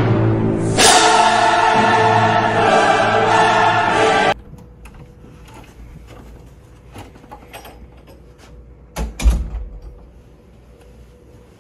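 Choral music with a full choir that cuts off suddenly about four seconds in. Then quiet room tone with faint clicks, and a door shutting with a loud, low thud near the end.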